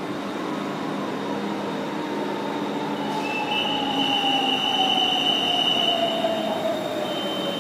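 BTS Skytrain electric train slowing as it pulls in, its motor whine falling steadily in pitch. A high steady squeal joins it from about three seconds in and fades about three and a half seconds later.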